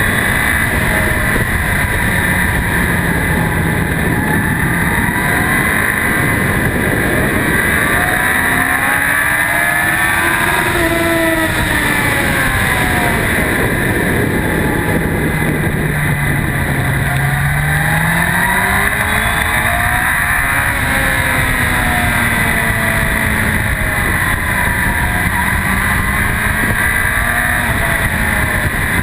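2004 Yamaha YZF-R1's inline-four engine running hard at track speed, heard through an onboard camera under heavy wind noise; the engine pitch climbs and drops several times as the throttle is opened and closed through the corners.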